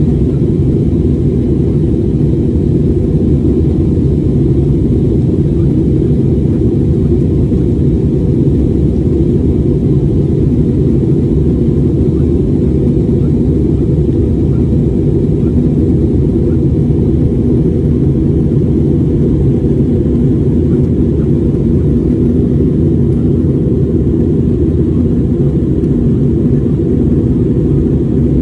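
Jet airliner cabin noise in flight: a steady, deep rumble of the engines and the airflow, heard from a window seat over the wing.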